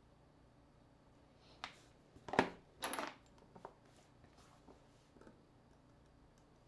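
Small hard clicks and a short clatter, loudest about two and a half seconds in, then a few faint ticks: small tools and phone parts handled and set down on a tabletop while a smartphone is taken apart.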